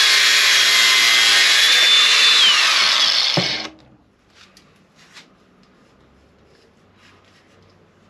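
Cordless angle grinder cutting through the steel beam of a digital caliper held in a vise: a loud grinding with a steady high whine. The whine falls about two and a half seconds in and the grinding stops after about three and a half seconds, followed by a few faint handling clicks.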